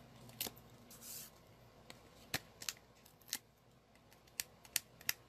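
Cardstock and paper pieces being handled and pressed together by hand: a scatter of light, sharp clicks and taps, with a short rustle about a second in.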